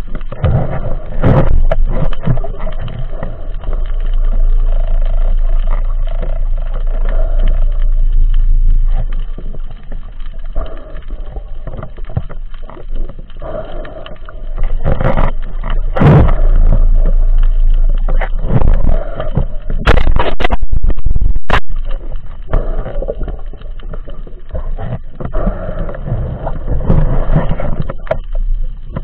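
Muffled underwater rumble and swishing of water picked up by a camera in a waterproof housing during a freedive, with a few sharp knocks, a quick cluster of them about two-thirds of the way through.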